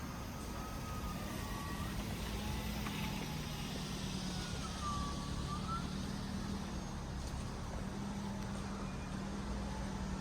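A motor vehicle's engine running close by: a steady low rumble with a hum, and a few faint sliding whistle-like tones over it.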